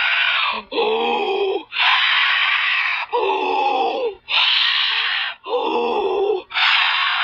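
A high-pitched cartoon voice building up to a sneeze: three drawn-out, downward-bending 'ah' sounds of about a second each, taking turns with loud, breathy gasping inhales.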